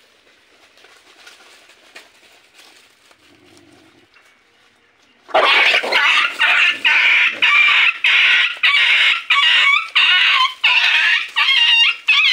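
Faint ticks and rustles, then about five seconds in a puppy starts yelping loudly: rapid, high, repeated cries, about two a second.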